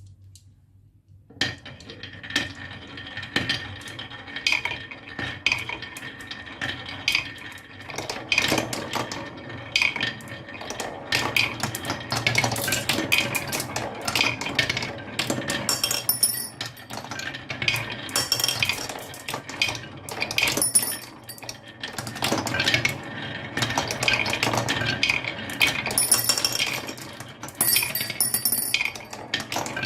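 Many marbles rolling and clattering down a marble run, a dense stream of clicks and clinks as they knock against the track and each other, starting suddenly about a second and a half in.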